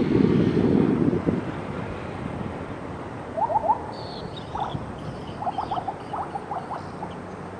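A low jet-engine rumble from a distant airliner fades away in the first second or two. Then an animal gives quick croaking calls in short bursts of three or four, several times over, with faint high chirps above.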